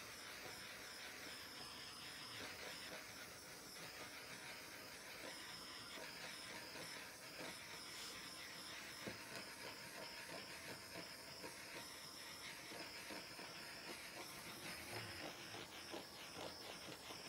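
Small handheld torch hissing faintly and steadily as its flame is passed over wet acrylic paint to pop the air bubbles.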